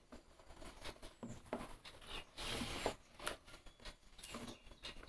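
Spoon stirring thin rice-and-coconut palappam batter in a steel bowl, giving faint, irregular scrapes and taps against the bowl as the batter is mixed to break up lumps.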